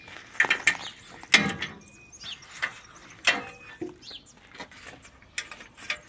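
Metal clanks and clicks from handling perforated aluminium step plates and their bolt-and-pin fastening, a string of separate knocks with a short ring after each, the loudest about a second and a half in and again about three seconds in.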